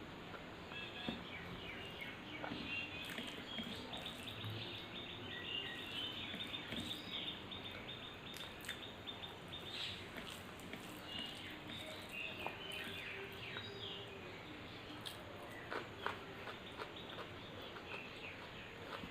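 Many small birds chirping continuously in the background, with a few sharp clicks scattered through, the loudest about sixteen seconds in.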